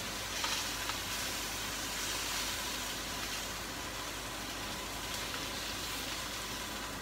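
Tilapia fillets frying in a pan, with a steady, even sizzle.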